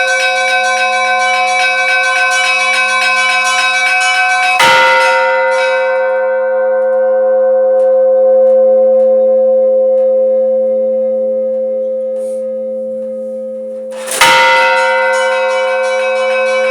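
A large church bell ringing: struck sharply about five seconds in and again about ten seconds later, each strike followed by a long, slowly fading ring whose low hum wavers.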